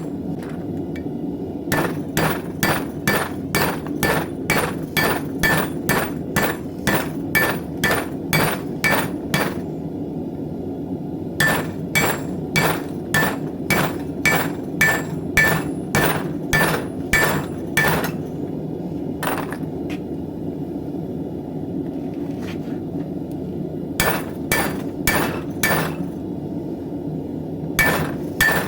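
Blacksmith's hammer forging a knife blank on an anvil, in runs of quick blows about two to three a second, each with a short metallic ring. The runs are broken by pauses of one to several seconds. A steady low rumble runs underneath.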